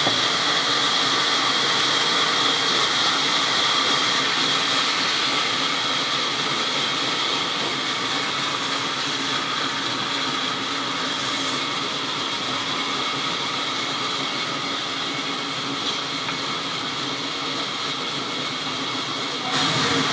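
Sawmill power saw running steadily while cutting wood: dense, even machine noise with a steady high whine over it, changing abruptly just before the end.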